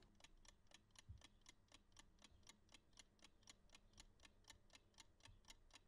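Mechanical analog chess clock ticking faintly and evenly, about four ticks a second. A soft low thump about a second in.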